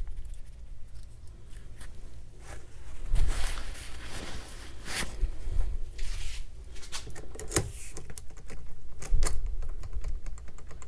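Key blank being worked in a Master Lock No. 187 padlock: irregular metal clicks, rattles and scrapes as it is wiggled and twisted to raise impression marks.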